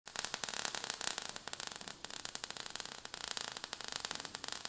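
Crackling, hissing spark sound effect: a dense stream of tiny crackles over a hiss, mostly high-pitched with little low end.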